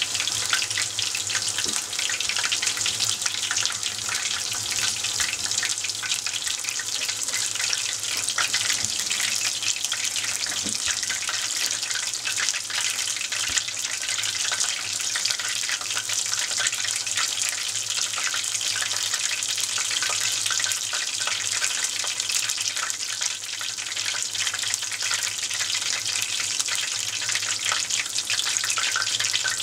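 Tempura frying in a pot of hot oil: a steady, dense crackle and hiss of bubbles around the battered pieces and loose batter bits.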